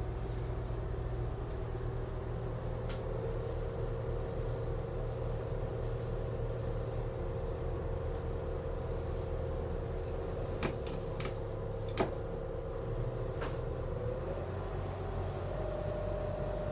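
Leopard 45 catamaran's inboard diesel engine running steadily at low speed while motoring. A steady whine steps up in pitch near the end, and a few sharp clicks come a little past halfway.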